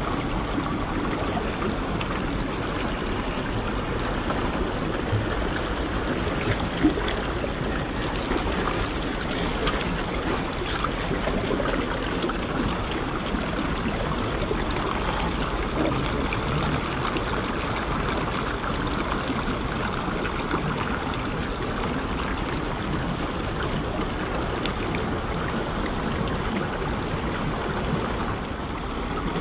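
Shallow stream water running steadily over a rock slab, with one brief knock about seven seconds in.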